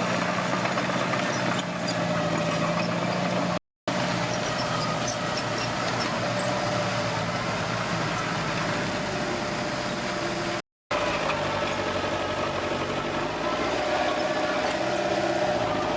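Komatsu D21P bulldozer's diesel engine running steadily under work. The sound drops out completely twice for a fraction of a second.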